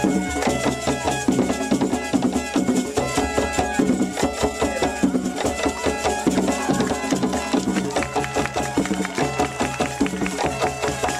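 Traditional African dance music: fast, dense drumming and percussion in a steady rhythm, with voices and pitched instruments over it.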